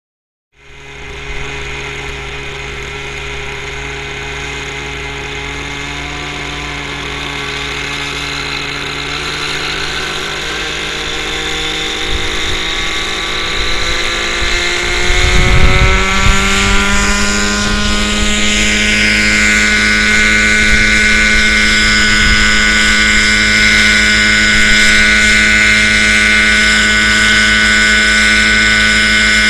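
Nitro RC helicopter's glow engine and rotor blades running steadily, then spooling up with a rising whine about halfway through as it lifts off. It then holds a steady, higher pitch in the hover.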